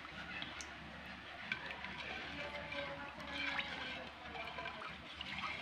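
Coconut milk swishing and sloshing in a wide pan as a plastic spatula stirs it, with a few light clicks.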